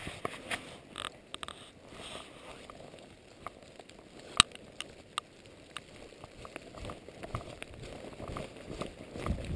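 Footsteps of a hiker walking on a wet dirt trail, with scattered light ticks and one sharp click about four and a half seconds in.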